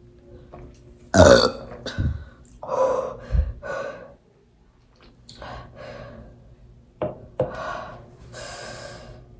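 A young woman burping loudly, a run of separate burps with short gaps between them, the loudest about a second in.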